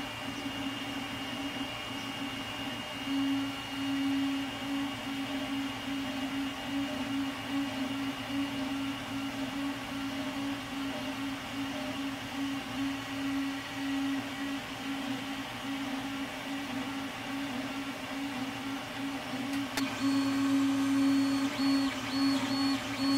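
Creality Ender 3 3D printer printing, its stepper motors humming with a wavering tone over the steady sound of its fans; the X and Y stepper motors are fitted with vibration dampers. About 20 seconds in, the sound switches to the same printer without the dampers: louder, with a high whine that pulses on and off.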